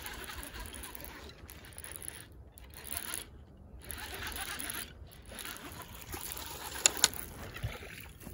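Fishing reel being cranked in spurts with short pauses, winding in a hooked bass, with two sharp clicks about seven seconds in.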